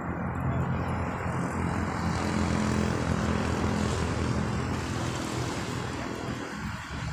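A steady engine drone with a low hum, swelling through the middle and easing off near the end.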